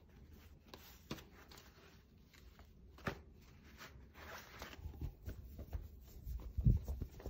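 Scratching and rustling handling noises with scattered light clicks, then a run of dull knocks growing louder near the end.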